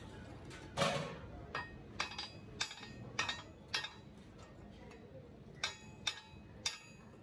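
Short-handled sledgehammer striking a steel strip on a steel hanger plate, knocking it square: about ten sharp metal blows with a brief ring, unevenly spaced, the loudest about a second in and a pause in the middle.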